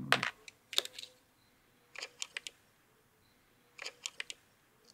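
Small sharp metallic clicks and taps from a screwdriver and tiny screws against a Bolex cine camera's metal body and a plastic parts tub as the lens turret's retaining screws are taken out, coming in four short clusters.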